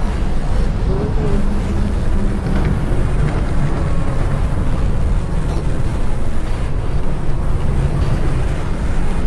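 Experimental noise music: a dense, steady low rumble with a fainter hiss above it, with no beat or melody.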